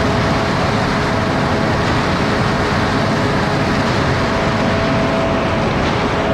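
Concrete mixer truck running steadily, its engine and turning drum making a dense even noise with a steady whine held through it.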